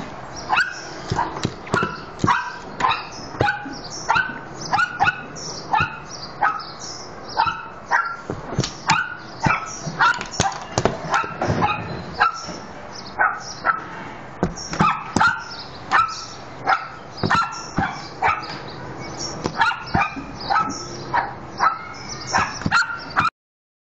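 Small dog barking over and over in quick, high yaps, about two a second. The barking cuts off suddenly near the end.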